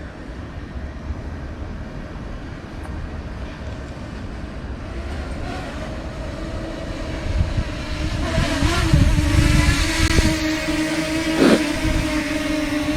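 Wind rumbling on the microphone. From about seven seconds in, a small drone's propellers add a steady hum as it hovers, pushed about by the wind.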